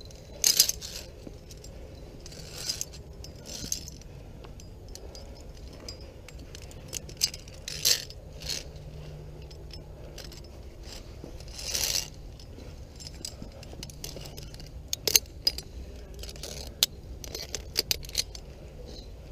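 Via ferrata lanyard carabiners clinking and scraping against the steel safety cable and its anchors as a climber moves along it. The sharp metallic clinks come irregularly, every second or two.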